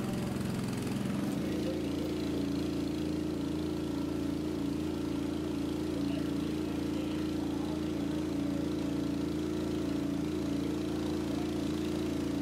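A machine's motor or engine running steadily at a constant speed: an unbroken low hum with a steady higher tone above it.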